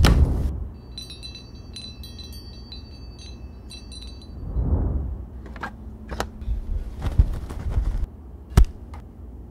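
A knock, then a short run of high chime notes that ring for about three seconds. A whoosh comes near the middle, followed by a few sharp clicks, the loudest near the end.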